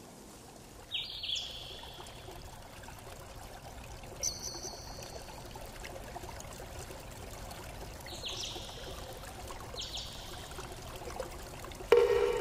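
Damascus steel folding knife handled in the hands: a few short, high metallic pings at intervals, then a louder click with a brief ring near the end as the blade is opened, over a steady background hiss.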